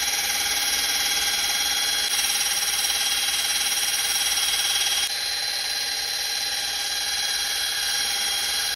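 Drill spinning a wool buffing pad loaded with compound against a painted 3D-printed helmet, buffing out sanding scratches: a steady motor whine over the hiss of the pad on the paint. It drops slightly in level about five seconds in and cuts off suddenly at the end.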